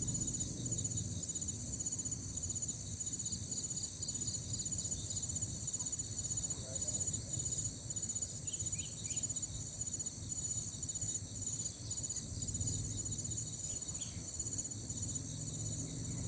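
Insects chirping in fast, even, pulsing trills at several high pitches at once, over a low steady rumble.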